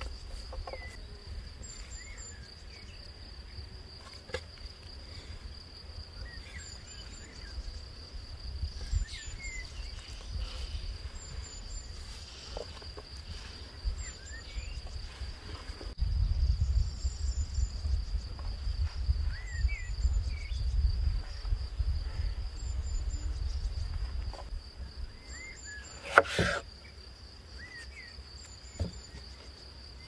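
Crickets or similar insects keep up a steady high-pitched trill, with short bird chirps here and there. A low rumble comes in about halfway and lasts some eight seconds, and a single sharp knock sounds near the end.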